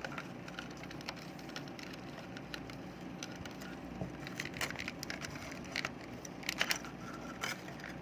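Scattered clicks and small cracking sounds of a plastic rechargeable flashlight's head being worked loose and pried off by hand.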